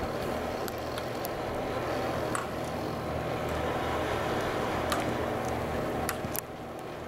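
Slalom skis scraping and carving on packed snow as a steady rushing noise, with a few sharp clacks of slalom gate poles being knocked aside.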